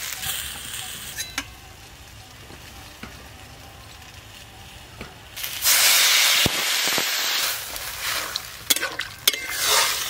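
Metal spatula clicking and scraping in a kadai of fried potatoes and drumsticks, then a loud burst of sizzling about five seconds in as water is poured into the hot mustard oil. A few more spatula clinks and a shorter sizzle follow near the end.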